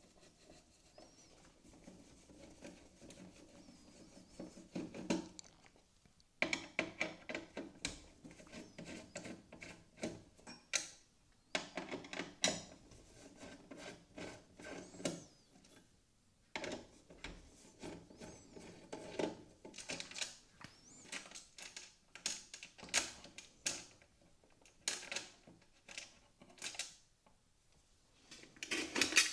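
Irregular clicks, taps and light rattles of computer parts and small hardware being handled and fitted, with short pauses in between.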